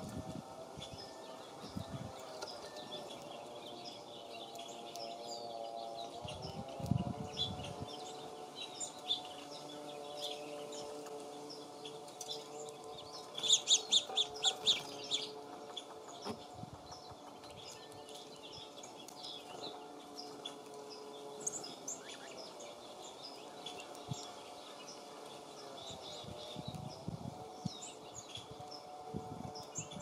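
Small songbirds chirping and calling, with many short, high notes scattered throughout and a loud burst of rapid twittering about halfway through. A faint, steady low hum runs underneath.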